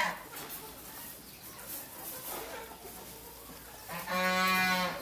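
A farm animal's long call, held at one steady pitch for about a second, near the end.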